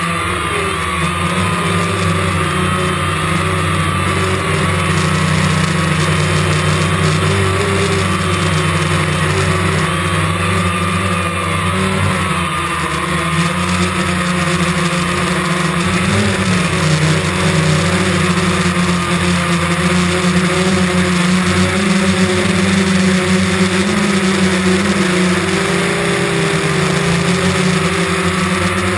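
DJI Phantom quadcopter's motors and propellers humming steadily, their pitch wavering as the motors adjust speed, over a rushing hiss.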